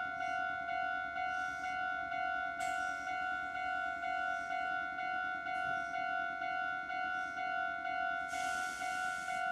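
Railway level-crossing warning bell ringing steadily, a repeated electronic clang at about two strikes a second, over the low running sound of a Meitetsu 6000 series electric train standing or moving very slowly. A short burst of hiss comes near the end.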